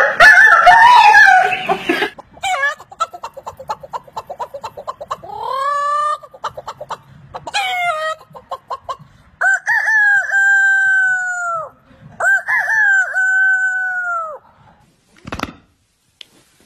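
Human vocal imitation of chickens: a loud squawking burst like a startled flock, then rapid clucking and rising cackles, then two long rooster crows. A single sharp click near the end.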